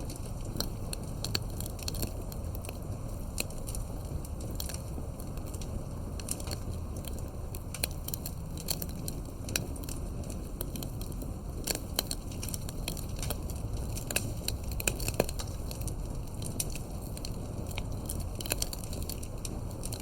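Fire crackling: a steady low rush of burning with irregular sharp pops and snaps scattered throughout, a few of them louder near the middle.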